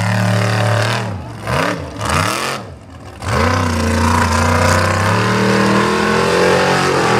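Formula Offroad buggy's engine revving hard under load on a steep dirt climb: the revs rise and fall three times in quick succession, drop away briefly about three seconds in, then come back up and hold high, climbing slowly.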